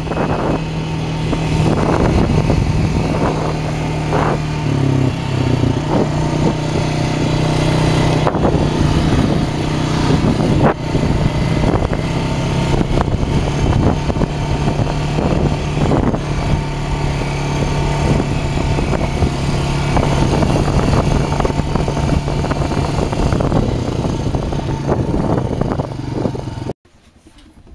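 Honda ATV engine running at a steady speed, with wind buffeting and knocks from the bumpy dirt road on the microphone. The sound cuts off suddenly near the end.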